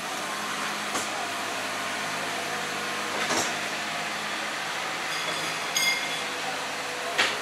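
City street ambience: a steady hum of traffic with a few short, sharp clicks, and a brief high ringing tone about five to six seconds in.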